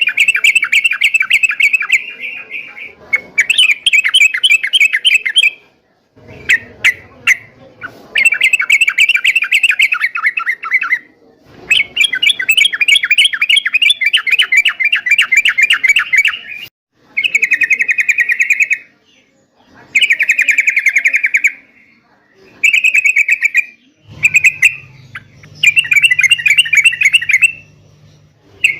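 Yellow-vented bulbul (trucuk) song: a run of loud, rapid, bubbling chattering phrases, each one to five seconds long, broken by short pauses. It is the excited, full 'gacor' singing used as a lure to make other trucuk answer. A faint low hum joins in near the end.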